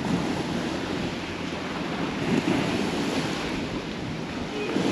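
Strong wind buffeting the microphone, with waves on a choppy, wind-whipped lake washing against the shore.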